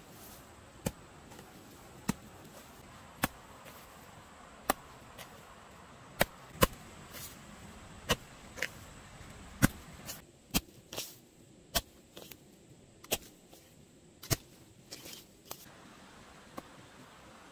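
A hoe blade striking and breaking up grassy soil, about one sharp chop a second, sometimes two in quick succession, as ground is dug over for a vegetable garden.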